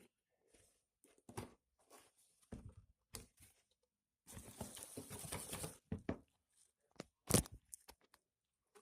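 Faint rustling and handling of packaging: scattered soft rustles and light clicks, a longer stretch of rustling about halfway through, and a sharper short knock near the end.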